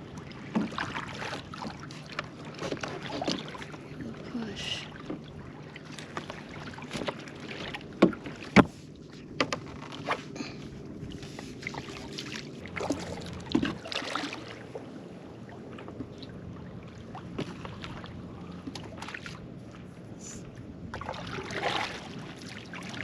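Paddles dipping and pulling through lake water, with splashes, drips and occasional sharp knocks of a paddle against the boat. A faint steady low hum runs underneath.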